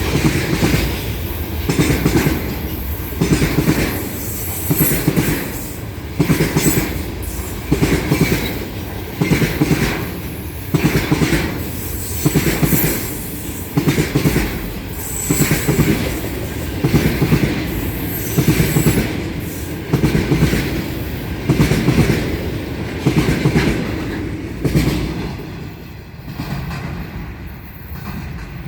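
Freight train of container wagons rolling past, its wheels clattering over the rail joints in a steady beat about every one and a half seconds. The clatter fades over the last few seconds as the end of the train goes by.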